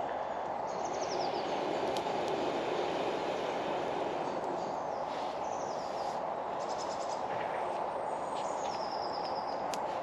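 Small woodland birds chirping in short high bursts several times over a steady rushing background noise, with a couple of faint clicks.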